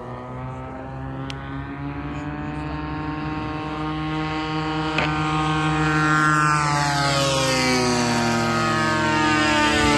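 Piston engines of two P-51 Mustangs flying a pass, growing louder as they approach, then the engine note dropping in pitch from about six seconds in as they go by. A single short click about halfway through.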